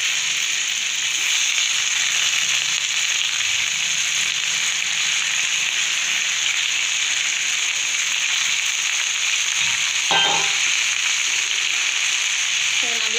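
Hot oil steadily sizzling in a stainless steel pan under a heap of freshly washed drumstick leaves and frying tempering, a high hiss. A brief, louder sound about ten seconds in.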